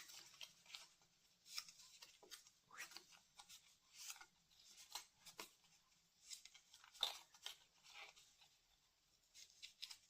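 Cardstock being bent and folded by hand: faint, irregular crackles and rustles of the card, with a sharper crackle about seven seconds in.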